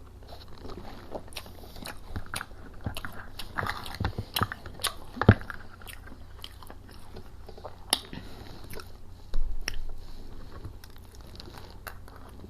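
Close-up mouth sounds of a person biting and chewing sauced fried food: irregular wet clicks and smacks, with one louder bite about five seconds in.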